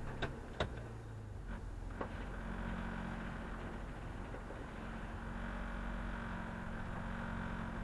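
A vehicle running slowly with a steady low drone made of several held tones, and three sharp clicks in the first two seconds.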